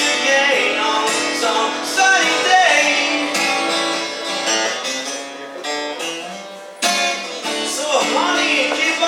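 A song with acoustic guitar accompaniment and a singing voice. It fades for a moment about two-thirds of the way through, then comes back in suddenly.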